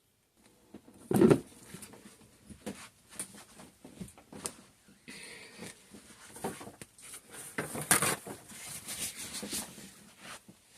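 Handling noises from soap-making tools: irregular knocks, taps and scrapes of utensils against a bowl or mold, with one loud knock about a second in.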